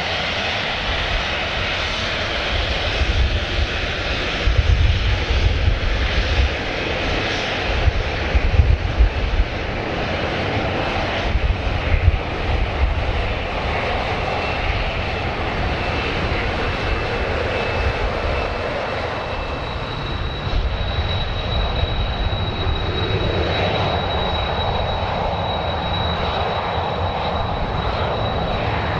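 Jet airliner engines running: a continuous rush with a low rumble that surges for several seconds in the first half. A steady high-pitched whine comes in about two-thirds of the way through.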